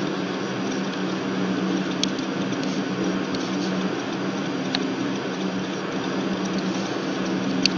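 Steady low hum and hiss of background room noise, broken by three faint clicks.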